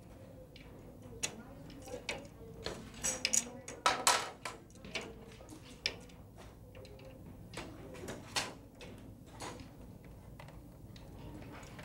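Plastic weights clicking and clacking against the pegs of a plastic math balance as they are hung on and taken off the beam, a scattered run of sharp clicks. The clicks are busiest about three to four seconds in.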